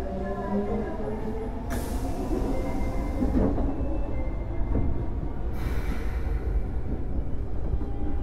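Unrenewed 23 series subway car on the Osaka Metro Yotsubashi Line running: a steady low rumble of wheels on rail under faint steady motor tones. Two stretches of hiss come through, about two seconds in and again near six seconds.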